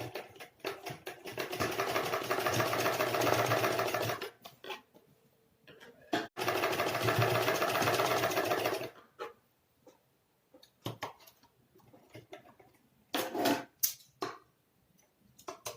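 Sewing machine stitching fabric in two steady runs of a few seconds each, sewing down a folded piping strip on a neckline, followed by a few short clicks and brief bursts near the end.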